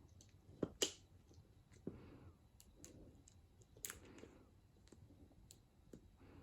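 Scattered sharp clicks and taps, two close together about a second in and more at about two and four seconds, with soft rustling between them, from cats playing with a bare cat-wand stick.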